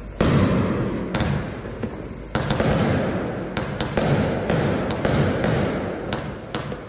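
Blackboxx "Drama Queen" 56-shot, 25 mm fireworks battery firing: a run of sharp launch and burst bangs, spaced about a second apart at first and coming closer together from about three seconds in.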